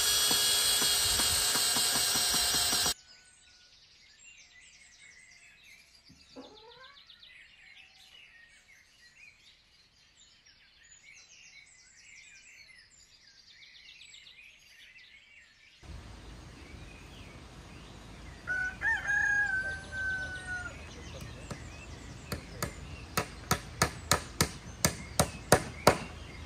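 A power drill runs for the first few seconds and cuts off abruptly, leaving faint bird chirps. A rooster crows once about two-thirds of the way through, and near the end comes a quick run of about a dozen sharp knocks, roughly three a second.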